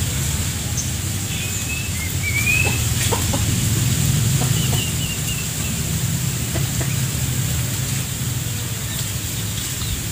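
Domestic chickens clucking quietly, with a few short high chirps from small birds in the first half, over a steady low rumble.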